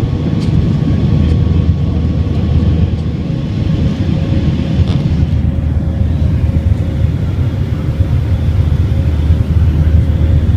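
Steady low rumble of a jet airliner's engines and rushing air, heard inside the cabin while climbing after takeoff, with a faint steady hum running through it.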